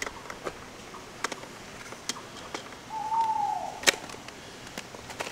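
A single hoot-like bird call about three seconds in, held on one pitch and then falling away. Scattered sharp clicks run around it, with a loud tap just after the call.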